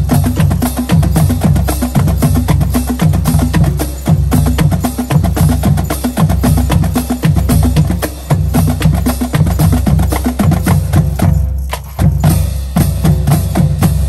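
Marching band percussion playing a fast, steady drum cadence: deep bass drum beats under sharp, clicking snare and rim hits. It stops at the very end.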